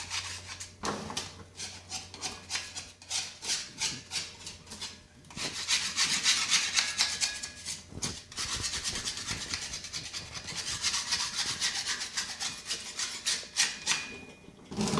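Quick repeated rubbing strokes on the side of an anvil, scrubbing off paint and rust loosened by electrolytic rust removal, with brief pauses between spells of scrubbing.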